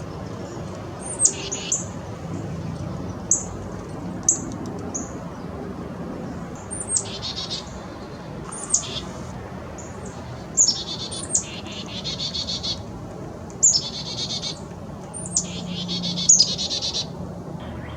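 Songbirds singing: repeated high phrases of sharp down-slurred notes and fast trills, coming every second or two.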